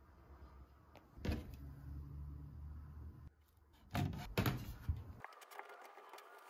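Handling noise from a 3D printer's build plate: a single knock about a second in, then a couple of louder clacks around four seconds in as the flexible Bambu Cool Plate is lifted off the printer's bed. After that comes faint scratchy rubbing as a glue stick is spread over the plate.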